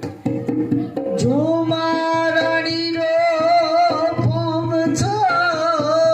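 Folk song with dholak: a powerful voice holds one long sung note with a wavering vibrato from about a second in, over steady dholak strokes.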